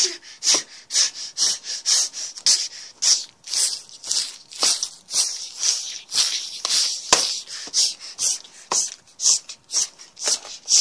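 Sawing: rasping back-and-forth strokes, about two a second, kept up throughout.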